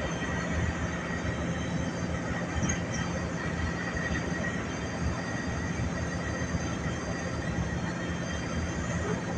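Cabin noise of a moving bus at highway speed: a steady engine drone and road rumble through the glass, with a faint high steady whine.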